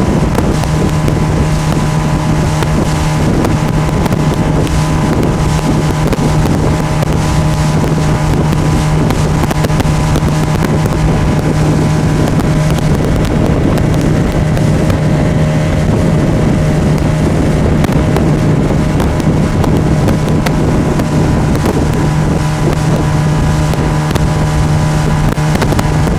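Mariner 20 outboard motor driving a small inflatable boat at a steady speed: an unchanging engine drone with a constant pitch.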